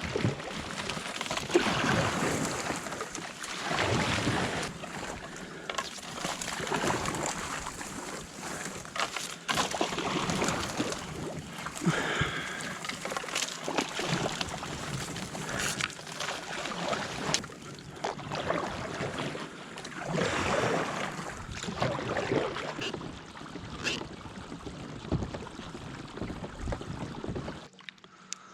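Water swishing and lapping around a kayak in uneven swells, with scattered sharp clicks and knocks.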